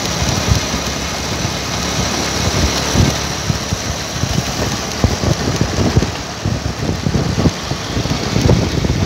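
Motor vehicle engine running on the move, a steady roar with irregular low rumbling thumps.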